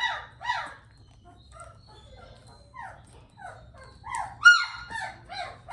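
Three-week-old Bernese Mountain Dog puppy crying in short, high, falling yelps and whimpers: two near the start, fainter ones through the middle, and a loud run of them about four seconds in. The puppy is fussing and upset.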